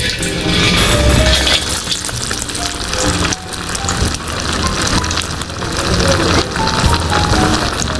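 Banana-flower vadas sizzling as they deep-fry in hot oil in a brass kadai, with soft background music.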